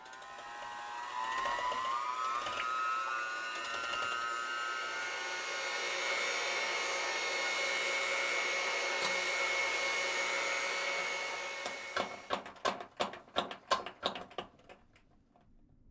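Electric hand mixer whipping cream in a glass bowl: the motor whine starts, climbs in pitch over the first few seconds, then holds steady and stops about twelve seconds in. It is followed by a quick run of sharp knocks, about four a second, for some three seconds.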